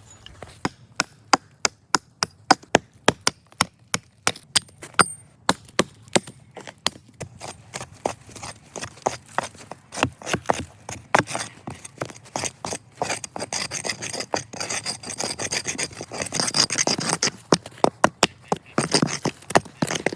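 Wood being worked with a hand tool in a series of sharp, regular strokes, about two a second at first, then rougher rasping strokes later on.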